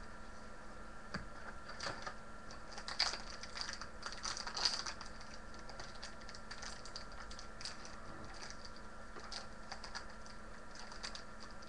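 A trading card packet being torn and crinkled open by hand: a run of short, irregular crackles, loudest about three and about four and a half seconds in.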